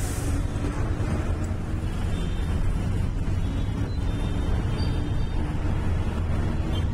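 Bus running on the road: a steady low engine drone with road noise.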